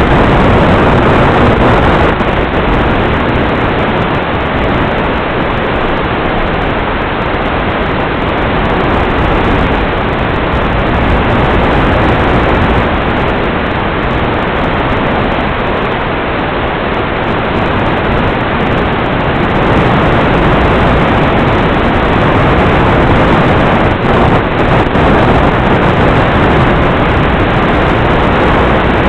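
Steady, loud rushing hiss with no clear motor tone, heard through the onboard FPV camera's audio feed on a small electric flying wing in flight.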